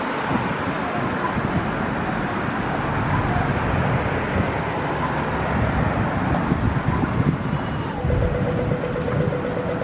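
Steady rumble of passing road vehicles, with a faint steady hum coming in near the end.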